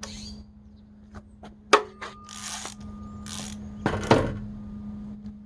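Metal tools and parts being handled on an engine under teardown: a sharp clink with a brief ring, two short rustles, then a heavier knock near the end.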